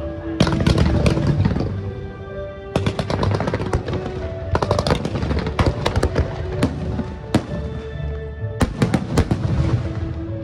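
Fireworks going off in clusters of sharp bangs and rapid crackles, over music with sustained notes.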